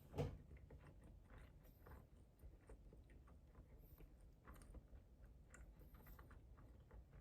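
Faint close-up chewing: soft scattered mouth clicks and crunches, with one short louder thump just after the start.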